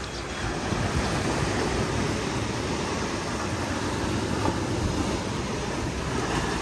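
Sea surf washing against the coast: a steady rushing noise that grows a little louder about half a second in.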